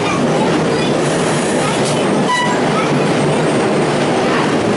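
Interior of a vintage streetcar running along the track: a steady rumble and rattle of the car body and wheels, with a brief high ringing tone about halfway through.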